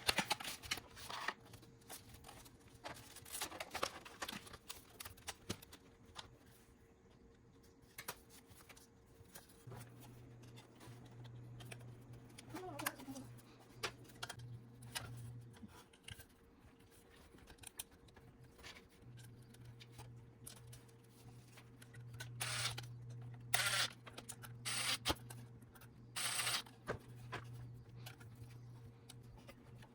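Handling noises: scattered clicks and several louder knocks, the loudest a little past the middle. A low steady hum comes in about ten seconds in, stops for a few seconds, then returns.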